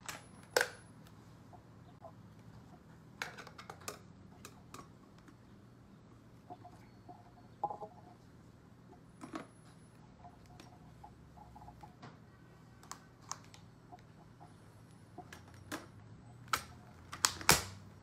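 Plastic clicks and knocks as a Kenmore DS4020 cordless stick vacuum's clear dust bin and filter are handled and fitted back onto the vacuum body. The clicks are scattered, and a quick cluster of sharp clicks near the end is the bin snapping into place.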